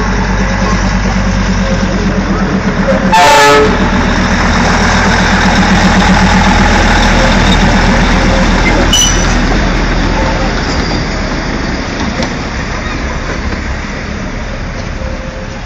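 Darjeeling Himalayan Railway narrow-gauge diesel locomotive running past with a steady throbbing engine, giving one short, very loud horn toot about three seconds in. The engine sound fades over the last few seconds as the train pulls away.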